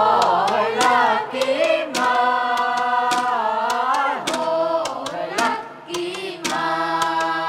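Group of voices singing a chant-like melody over a held low drone, with sharp percussive strikes repeating a couple of times a second.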